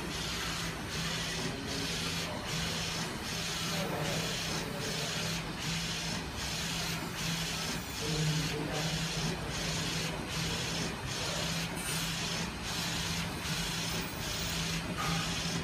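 Flatbed inkjet printer running a print job: the print-head carriage shuttles back and forth, a steady hiss and motor hum that break off briefly at each turn, about once every three quarters of a second.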